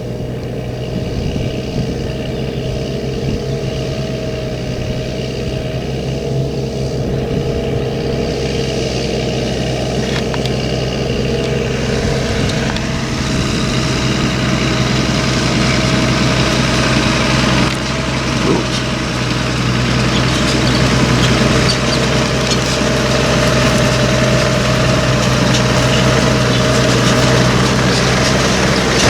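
New Holland tractor's diesel engine pulling a plough through the soil, running steadily under load. It grows gradually louder as it comes closer, with more rattle and rushing noise from about halfway through.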